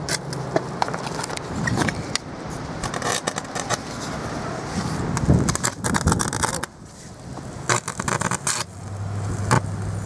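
Overvolted double squirrel-cage blower fan motor arcing at its brushes, crackling and spitting irregularly over a low motor hum; the arcing is the sign of the motor failing under too much voltage.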